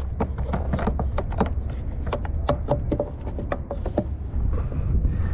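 A quick, irregular run of sharp clicks and knocks from fish and gear being handled on a plastic kayak, over a steady low rumble of wind on the microphone.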